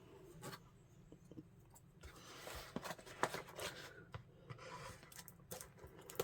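A box being opened and its contents unpacked by hand: scattered rustling, scraping and light clicks, starting about two seconds in.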